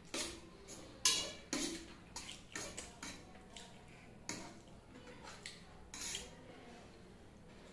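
Metal fork clinking and scraping on a stainless steel plate as noodles are picked up, in short irregular strokes, the loudest about a second in.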